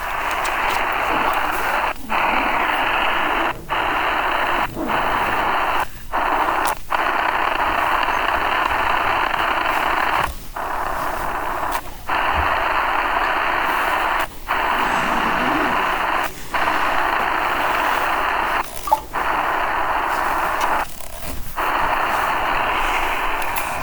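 A steady, static-like hiss cut by short dropouts every second or two.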